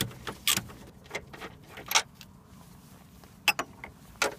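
Irregular metallic clicks and clinks of a socket wrench working loose the 16 mm bolts of an engine mount, a sharp click every half second to second, with a gap of about a second and a half in the middle.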